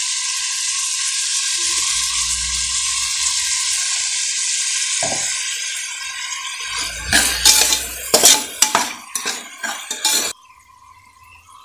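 Vegetables sizzling in hot oil in an aluminium pressure cooker, a steady hiss. From about seven seconds in, a spatula stirs them, scraping and knocking against the pot. Near the end the sound drops away abruptly.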